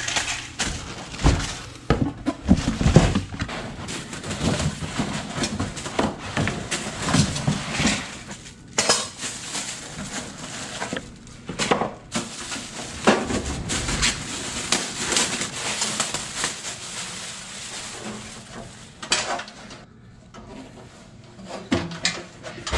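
A new bathroom exhaust fan being unpacked from its box: a long run of irregular rustling, knocks and clinks as the fan and its parts are handled.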